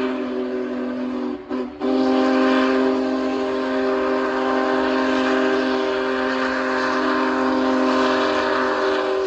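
Union Pacific Big Boy steam locomotive's whistle blowing a long, steady chord, with a short break about one and a half seconds in.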